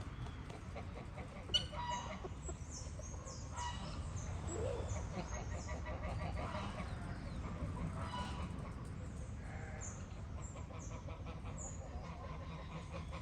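Chickens clucking, with many short high chirps repeated throughout over a steady low rumble. A sharp click about a second and a half in is the loudest moment.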